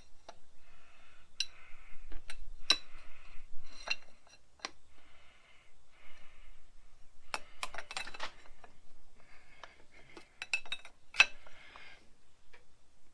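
Steel parts of a Stoll Hydro-Fix hydraulic quick coupler being handled: a string of sharp metal clinks and taps, each ringing briefly, the loudest near the end.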